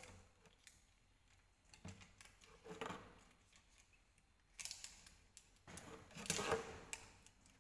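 Plastic spoons clicking and scraping against small plastic yogurt cups as they are eaten from, with a few louder scrapes about three seconds in and again in the second half.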